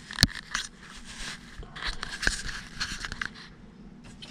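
Handling noises from parts and tools being moved by hand: one sharp click about a quarter second in, then scattered small clicks, scraping and rustling.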